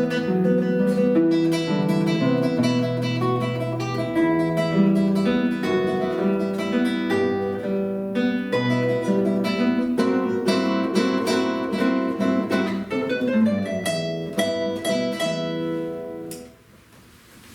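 Two acoustic guitars playing a duet, with plucked and strummed notes over a bass line. A rising run comes a little after halfway, and the piece ends on a final chord about a second before the end.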